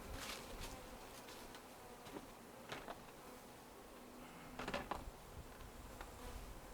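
Honey bees buzzing faintly around, with a few short soft clicks or rustles about three and five seconds in.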